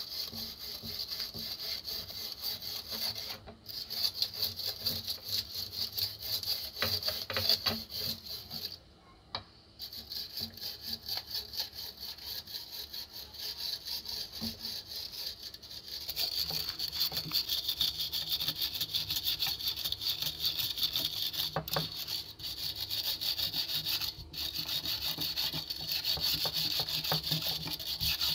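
Wire brush scrubbing rust off a revolver's metal parts under a shallow bath of cleaning liquid: fast back-and-forth scratchy strokes, with a short pause about nine seconds in.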